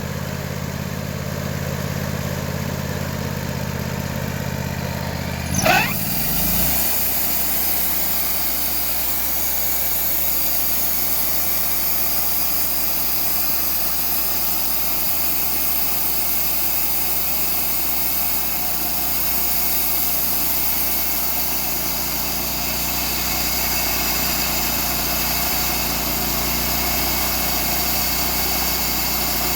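Small gasoline engine of a homemade sawmill idling, then revving up quickly about six seconds in and running steadily at higher speed with a steady hiss over it.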